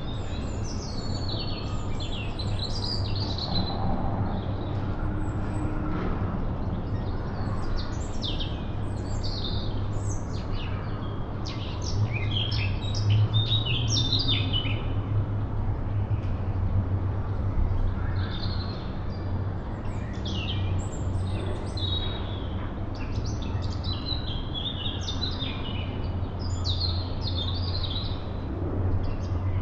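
Small birds chirping and singing in short, quick phrases of high notes, over a steady low rumble.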